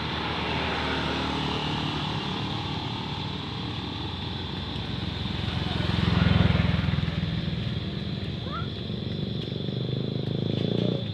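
Motor traffic on the road: motorcycles and other vehicles running, one passing close and loudest about six seconds in, over a steady high-pitched hum.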